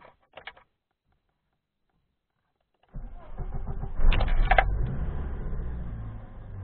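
About three seconds in, a car's starter motor cranks the engine, which catches about a second later with a loud flare and settles into a steady idle. This is the test start on a newly fitted car battery.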